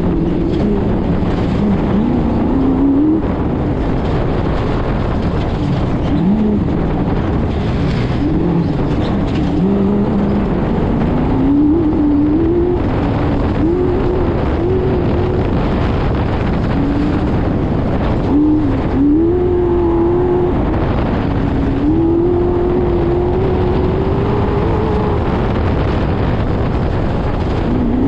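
Off-road race car's engine heard from on board, revving up and dropping back again and again as it is driven hard over a rough dirt track, under a steady din of rattling and road noise. Near the end the engine holds one long, slowly rising pull.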